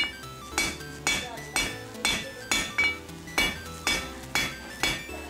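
Hand hammer striking red-hot mild steel square stock on an anvil, about two blows a second, each with a bright metallic ring. Background music plays under the blows.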